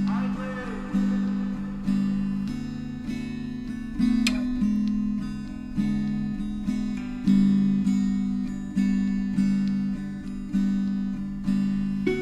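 Background music: a gentle acoustic guitar track, plucked notes in an even, repeating pattern.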